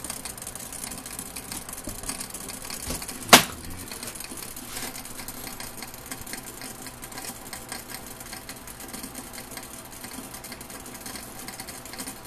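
Steam distillation apparatus running: a steady, fast mechanical rattle, with one sharp click about three and a half seconds in.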